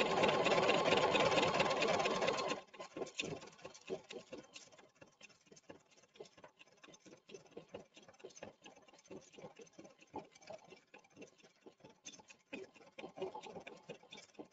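Pfaff embroidery machine stitching a top stitch along a quilt-block piece in the hoop. It runs steadily and loudly, then about two and a half seconds in the sound drops abruptly to faint, rapid, irregular ticking.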